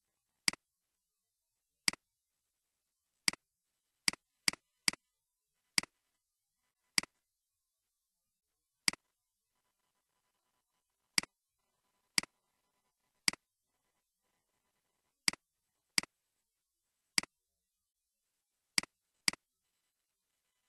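Computer mouse clicks: about seventeen sharp, identical clicks at irregular intervals, some in quick pairs, with silence between them.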